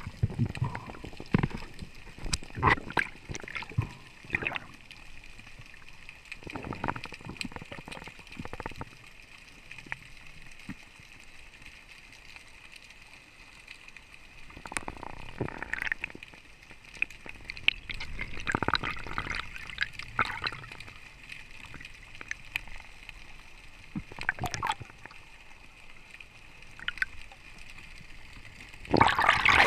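Water sloshing and gurgling close to the microphone in irregular splashes, with quieter stretches between. Near the end a louder, continuous rush of water sets in suddenly.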